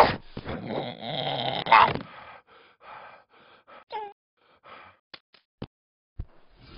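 Cartoon polar bear straining under a barbell: a loud strained cry, then a harsh groan of effort, then quick breathy panting at about three puffs a second. A short falling yelp about four seconds in, followed by a few light clicks and a low thump near the end.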